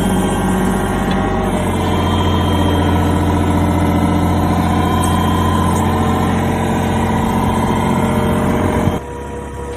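Yanmar VIO20-1 mini excavator's diesel engine running steadily; its note shifts about a second and a half in, and near the end the sound drops suddenly quieter.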